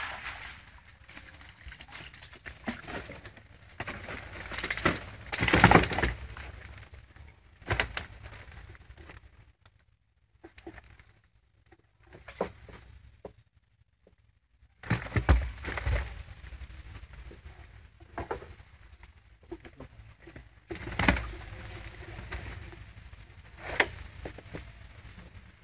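Wet mesh lú (collapsible shrimp trap net) being hauled out of the water and shaken out into a styrofoam box: irregular splashes, rustling net and knocks of the catch spilling in, with a quieter stretch in the middle.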